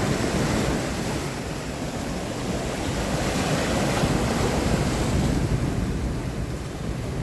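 Sea waves breaking and washing up the beach, swelling and easing, with wind buffeting the microphone.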